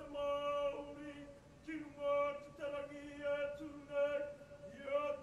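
Kapa haka group singing the whakaeke (entrance item), men's and women's voices together in a chanted Māori melody sung in short held phrases that step only a little in pitch.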